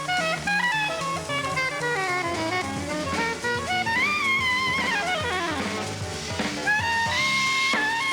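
Jazz music: a lead melody over bass and drums. A long note bends down in pitch about four to five seconds in, and a high note is held near the end.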